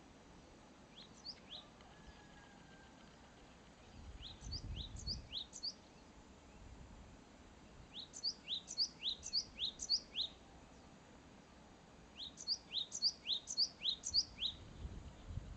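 A songbird singing: short phrases of quick, sharp high notes, repeated four times with pauses between, the later phrases longer.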